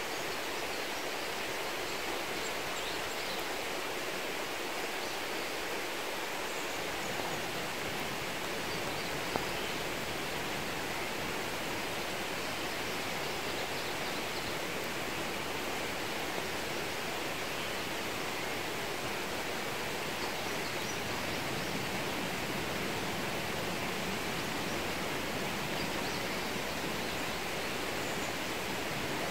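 Steady rain falling on garden plants, an even hiss, with a single faint click about nine seconds in.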